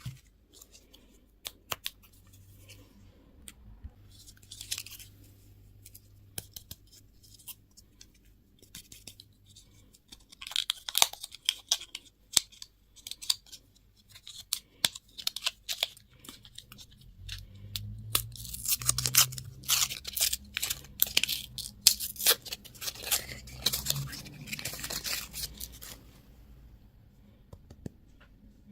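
Plastic packaging crinkling and tearing, with scattered small clicks and taps. The crackling is densest in two stretches: around the middle and through most of the last third.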